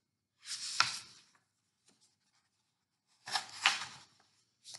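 Paper pages of a picture book rustling as they are handled and turned: two short rustles, each with a sharp crackle, about a second in and again about three and a half seconds in.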